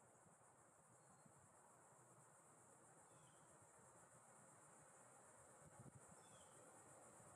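Near silence with a faint, steady, high insect buzz and a few faint short chirps.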